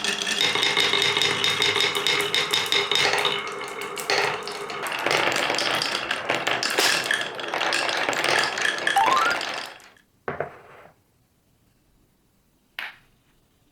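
Many balls rolling and clattering down a wooden marble run, a dense rattle of clicks and knocks with some ringing tones and a brief rising whir just after nine seconds. The clatter stops about ten seconds in, followed by a single knock and, near the end, one sharp click.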